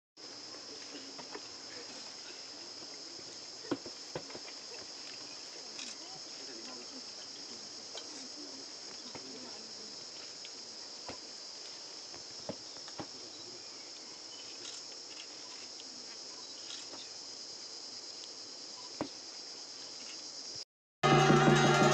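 Steady high-pitched chorus of insects, with a few faint clicks and knocks.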